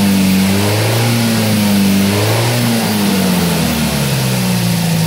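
Toyota MR2 (AW11) engine idling while its cooling system is bled of air through a filler funnel; the engine speed rises and falls slightly, then drops lower and settles near the end.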